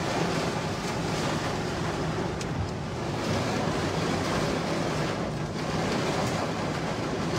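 Heavy rain hitting a car's windshield and roof, heard from inside the moving car together with tyres hissing on the wet road: a steady, dense hiss with a low hum underneath.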